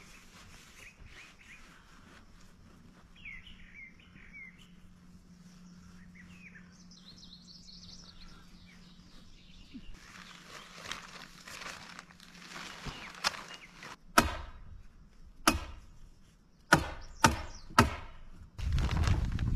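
Birds chirping softly at first; then black plastic sheeting rustling as it is handled, five sharp clacks in the second half as the liner is fastened to the wooden bed, and loud crinkling of the plastic close by near the end.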